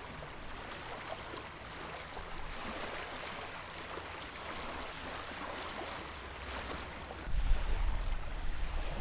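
Small waves lapping on a pebbly lake shore, a gentle steady wash. About seven seconds in, wind starts buffeting the microphone with a deep rumble, louder than the water.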